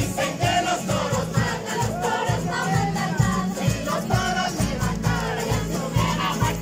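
A street band of acoustic guitars and an accordion playing a festive Andean tune while a group of people sings coplas together over it, with a steady beat.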